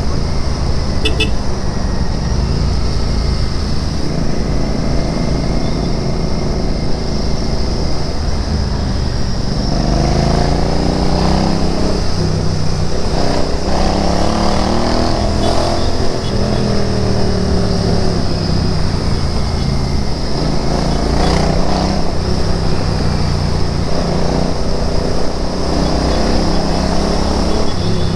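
Royal Enfield Interceptor 650's parallel-twin engine and exhaust under way. The engine pitch climbs and falls as the bike accelerates through the gears and eases off, about a third of the way in and again near the end.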